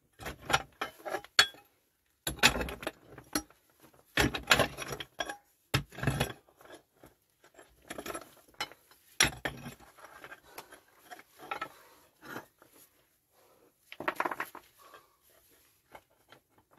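Short-handled hand pick striking and scraping into packed stone-and-earth fill, with loose stones clinking and knocking as they are pulled free by hand. The strikes come in irregular clusters with short pauses between them.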